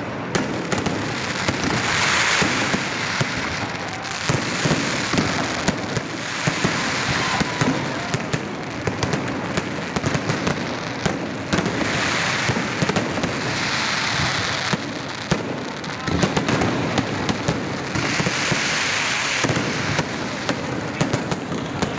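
Aerial fireworks display: many sharp bangs from shells bursting in quick succession, with swells of crackling hiss every few seconds.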